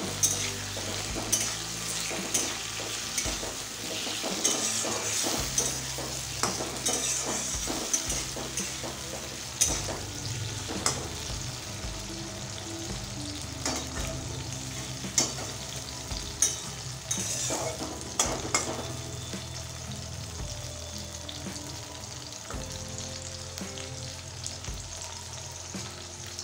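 Potato wedges, onion and tomato frying in oil in a kadai, sizzling steadily, with a spatula stirring and knocking against the pan every second or so; the knocks thin out over the last third.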